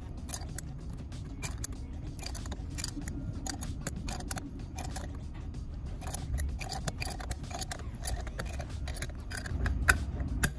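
Irregular small metallic clicks and clinks of a combination wrench working the nut on a Yamaha R1 water pump shaft, with locking pliers gripping the shaft, and one sharper click near the end. A low steady rumble runs underneath.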